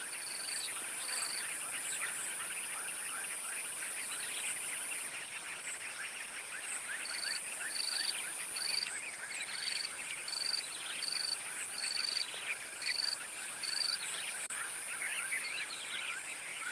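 Insects chirring, with a steady high-pitched drone and, from about seven seconds in, a short note repeated about twice a second. Many quick falling chirps from other small animals are mixed in.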